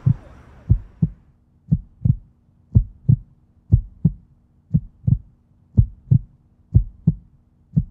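Heartbeat sound effect: low double thumps (lub-dub), about one pair a second, with a faint steady hum underneath.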